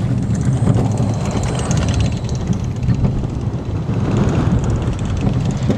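Cobra steel roller coaster train running along its track at speed: a steady low rumble of the wheels with air rushing over the microphone.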